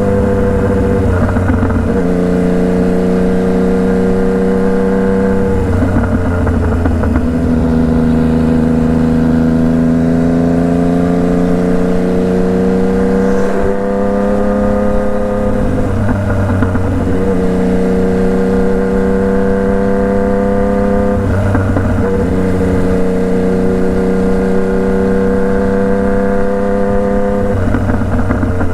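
Yamaha MT-09's three-cylinder engine running under way, heard from on the bike. Its pitch changes in steps several times, a gear change every few seconds, and rises slowly in between.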